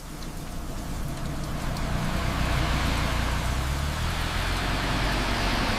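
Motor vehicle engine running with a steady low drone under an even hiss, fading in over the first couple of seconds.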